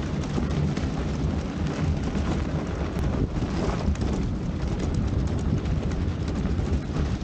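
Fat-tyre electric scooter rolling over packed snow: a steady rumble from the tyres on the snow with many small crackles, and wind buffeting the microphone.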